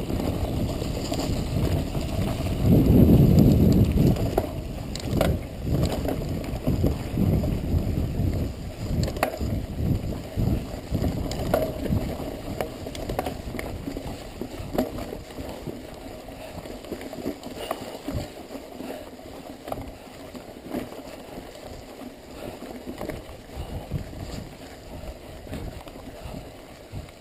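Mountain bike descending rough, leaf-covered singletrack: a steady rush of tyre and wind noise with frequent clatters and knocks as the bike rattles over rocks and roots. Loudest a few seconds in, then gradually quieter.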